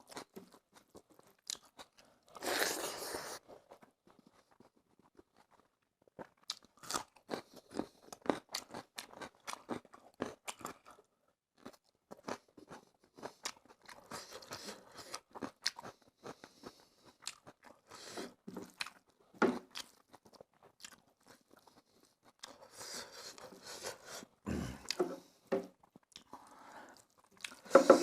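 Close-up eating sounds of a person chewing a fish curry and rice meal: many short wet smacks and clicks, with a louder noisy stretch about two and a half seconds in and another near the end.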